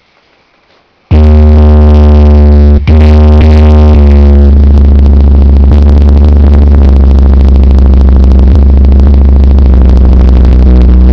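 Subwoofer playing a woofer excursion test track from a bass test CD: a very loud, steady sub-bass tone that starts suddenly about a second in, harsh with distortion, with a brief dropout near three seconds.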